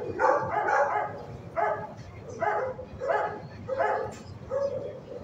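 A dog barking over and over, about seven barks evenly spaced roughly three-quarters of a second apart.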